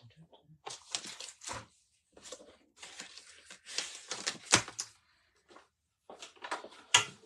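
Rustling and crinkling handling noise from craft supplies being moved about, in irregular bursts. Sharp clicks come about four and a half seconds in and again near the end.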